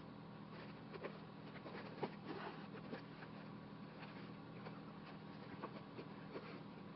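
Faint scratchy rustling of hand-sewing: needle and thread drawn through the cap's stiff fabric while the cap is turned in the hands, with a small click about two seconds in. A low steady hum runs underneath.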